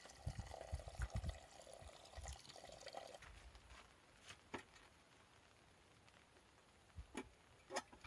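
Liquid pouring for about three seconds, then a few light clicks and knocks.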